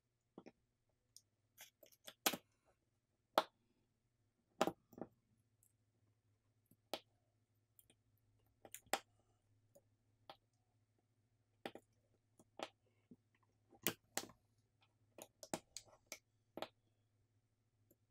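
Irregular sharp clicks and taps of small phone parts (circuit boards, flex-cable connectors, brackets) being set down and pressed into a Samsung Galaxy S25 FE's metal frame during reassembly.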